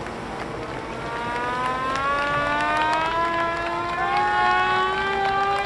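Modified pulling tractor's engine with a pitched whine that rises slowly and steadily, growing louder as the revs build.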